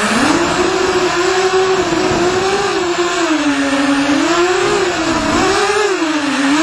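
FPV racing quadcopter's motors and propellers whining, the pitch swinging up and down every second or so with throttle changes.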